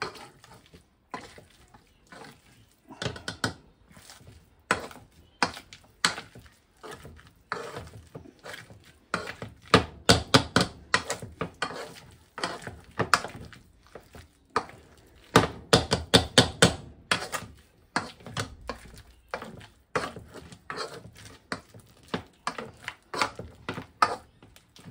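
Metal hand potato masher mashing boiled potatoes in a saucepan: repeated irregular knocks of the masher against the pan, coming in quicker runs about ten seconds in and again about sixteen seconds in.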